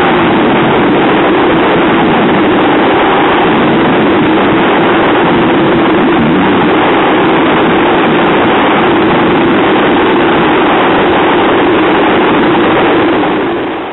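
Atlantic 85 RIB lifeboat's twin outboard engines running steadily under load while towing, mixed with heavy wind and water-spray noise. The sound fades out near the end.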